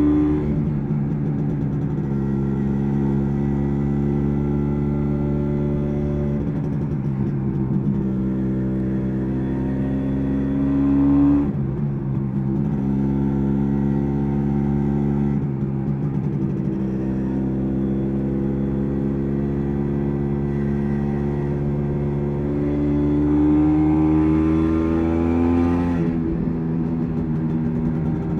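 MZ ETZ 250's single-cylinder two-stroke engine pulling under way. Its note climbs with revs and drops sharply at each gear change, several times, most plainly near the middle and near the end.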